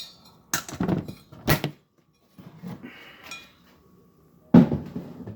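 Cat food dishes being handled and set down: a few separate knocks and clatters, with a sharp knock about a second and a half in and the loudest one near the end.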